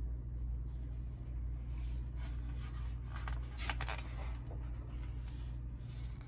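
Page of a hardcover picture book being handled and turned: paper rustling and sliding from about two seconds in until just past five, with a few sharper scrapes in the middle, over a steady low hum.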